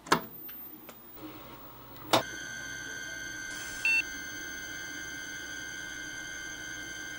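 A key switch on an old CNC mill controller clicks as it is turned, and a second loud click follows about two seconds later. The controller then powers up with a steady electrical hum and high whine, and gives one short beep about four seconds in.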